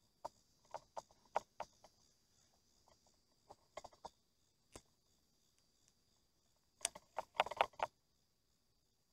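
A series of sharp clicks and knocks at irregular intervals, with a quick bunch of them about seven seconds in.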